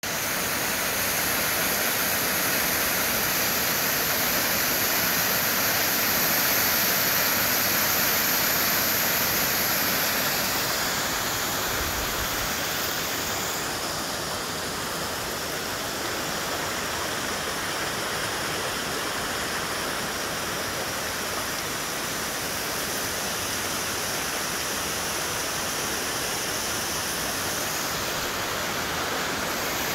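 Muddy floodwater from a small waterfall rushing and splashing over rocks in a steady roar of water, a little louder in the first ten seconds and slightly softer after.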